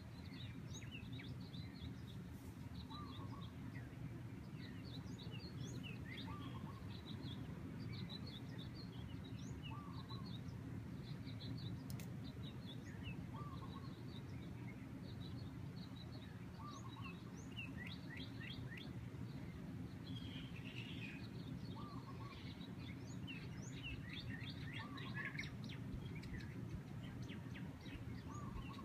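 Birds chirping: many short, high chirps throughout, and a lower call repeated every couple of seconds. Underneath is a steady low rush of breeze.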